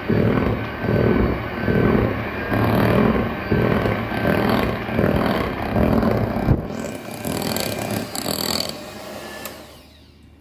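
Electric hand mixer running, its beaters whipping thick cake batter in a glass bowl, with a regular pulse a little under twice a second. The sound thins about six and a half seconds in, and the mixer stops near the end.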